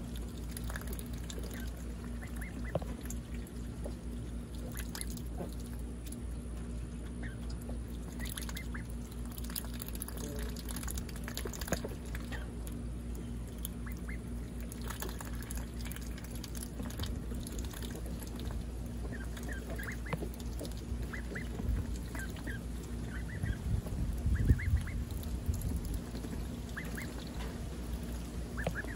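A flock of young ducks calling softly with short, scattered calls while they feed, bills dabbling in the water dish. Wind rumbles steadily on the microphone and swells briefly near the end.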